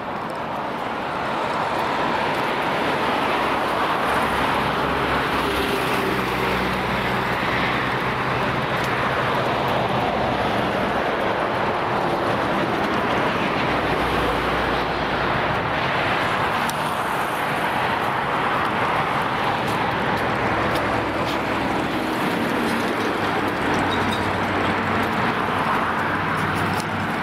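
Heavy road traffic passing close by on a bridge: tyre noise from lorries with a low engine hum underneath. It swells about a second in and then stays steady.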